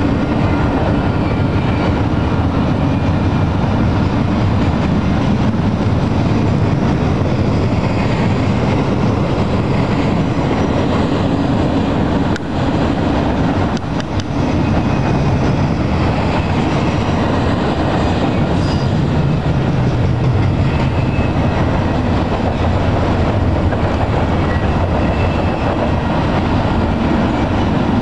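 Double-stack container train's well cars rolling past: a loud, steady rumble of steel wheels on rail.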